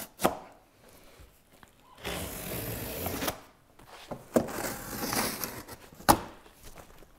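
Box cutter slicing through packing tape on a cardboard box, a scratchy hiss of about a second and a half, followed by more scratching as the cardboard flaps are pulled open and a sharp click near the end.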